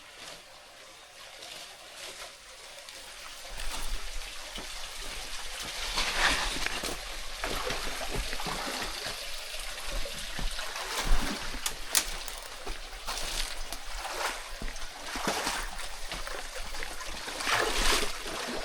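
Water trickling and splashing, with irregular rustles and sharp knocks and a low rumble of wind on the microphone from about four seconds in.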